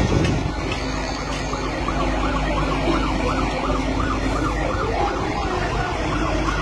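Fire engine siren wailing rapidly up and down, coming in about a second and a half in, over steady street noise.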